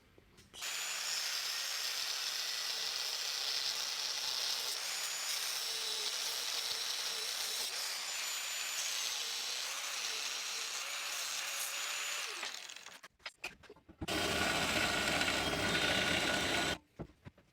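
A power tool cutting through a steel bolt: a steady, loud, high whine with hiss for about twelve seconds that then winds down, and a second, shorter run near the end.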